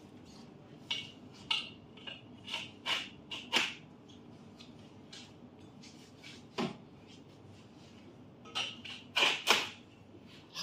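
Irregular clicks, knocks and clatters of a bed guard rail's frame and plastic hinge fittings being handled and fitted together, loudest near the end.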